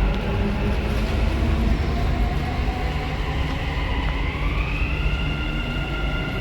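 Dubai Metro train running, heard from inside the carriage: a steady low rumble with a high electric whine that glides up in pitch about four seconds in, as the train gathers speed.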